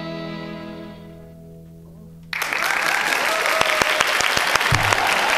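The last held chord of a small string ensemble and harp fading away, then clapping breaking out suddenly a little over two seconds in and carrying on.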